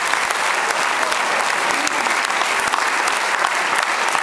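Theatre audience applauding steadily, a dense even clapping from a large crowd during curtain calls.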